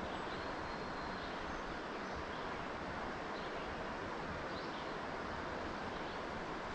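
Steady rush of a stream's flowing water, with a few faint, short high chirps.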